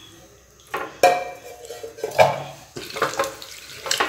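Hand mixing shark pieces into a thick masala marinade in a stainless steel bowl: a quiet start, then from about a second in a run of irregular knocks and clinks from the bowl, some ringing briefly.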